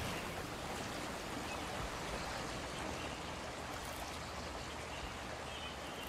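Steady rush of water in a rainstorm: rain coming down onto running water.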